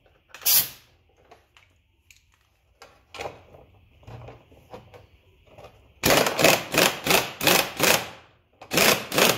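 Cordless impact wrench hammering a nut loose on a golf cart's accelerator contact-board assembly: a rapid rattle in two bursts, a long one about six seconds in and a short one near the end. Before that, a few light clicks and knocks as the board and socket are handled.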